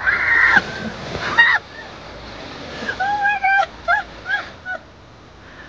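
Water splashing and churning as a polar bear wrestles a floating plastic buoy in its pool. Short high-pitched calls sound over it: a burst at the start and a quick run of several about three seconds in.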